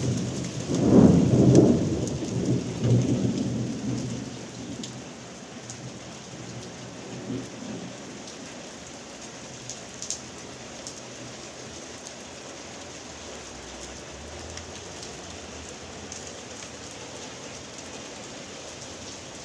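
Thunder rumbling, loudest about a second in and dying away over the next few seconds, over steady rain falling on surfaces with scattered sharp drip clicks.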